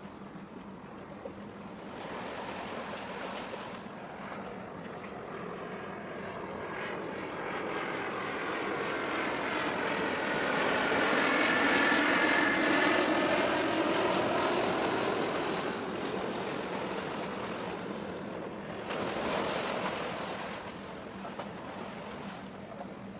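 An aircraft passing overhead, growing to its loudest about halfway through and then fading, with a high engine tone falling slowly in pitch. A brief gust of noise comes near the end.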